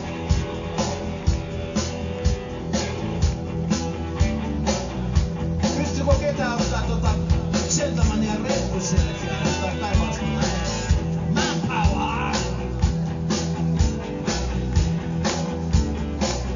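Live rock band playing on stage: two electric guitars, keyboards and drums on a steady beat, with a lead line bending in pitch.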